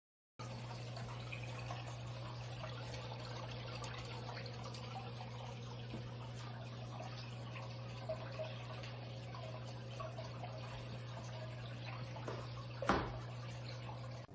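Aquarium water trickling and dripping over a steady low electrical hum from the running circulation pump, with a single sharp click near the end.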